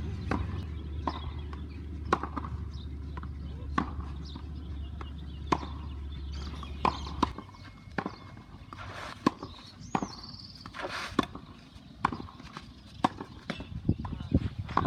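Tennis rally on a clay court: sharp pops of a racket striking the ball and the ball bouncing, about once a second. A low hum underneath stops about halfway through.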